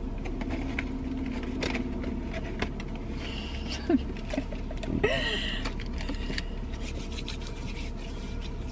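Small rustles and clicks of things being handled in a car cabin, over a steady low hum. There is a brief murmur of a voice about four seconds in and another about five seconds in.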